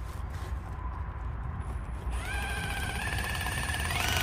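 Cordless drill starting about halfway through and running with a steady motor whine that steps up in pitch near the end, as it drives a self-drilling screw through the greenhouse strap into the steel pipe frame.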